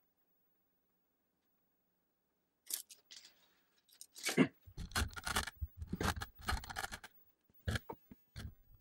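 Handling noise of metal rods and printer parts on a workbench, sped up four times: quiet at first, then from about three seconds in a run of quick scrapes, rattles and knocks, with a few separate clicks near the end.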